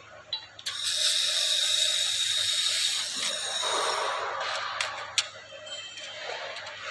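Laser welder with a 2000 W Raycus fiber laser source firing: a hiss with a thin steady whistle for about three seconds, then softer rushing and two sharp clicks.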